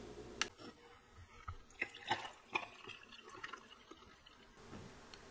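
Hibiscus drink being poured from a glass pitcher into a glass of ice: quiet, irregular drips and splashes with small sharp clicks and pings from the ice.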